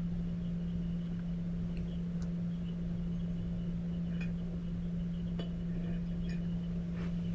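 Steady low hum of room tone, with a few faint clicks scattered through it.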